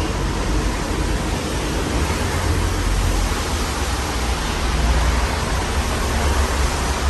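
Modern Fan Company Cirrus ceiling fan with its GE K55-type motor running, a steady rush of air over a deep low rumble.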